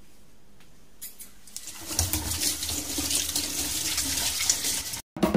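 Water running from a tap into a sink: a steady rushing hiss that starts faintly about a second in, grows fuller from about two seconds, and cuts off abruptly near the end.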